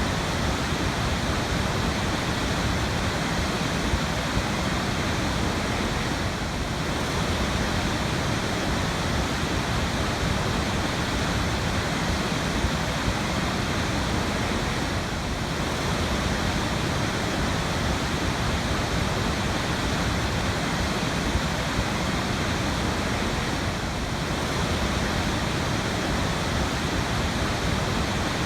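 Waterfall: falling water rushing steadily, an even, unbroken wash of noise.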